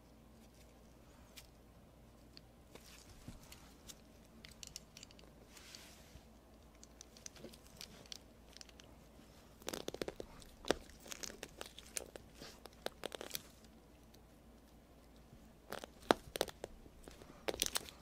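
Hand crimping tool squeezed onto a speaker-cable connector: a run of sharp clicks and crunches about ten seconds in and a second run near the end, after faint handling of wire and tubing.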